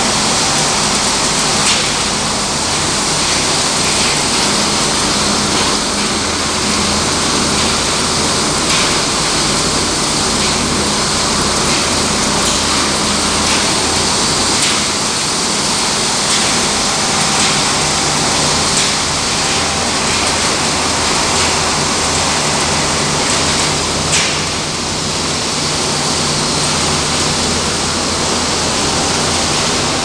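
Refrigerator shredding and recycling line running: a loud, steady rushing noise with a low machine hum underneath and scattered small ticks, one sharper click late on.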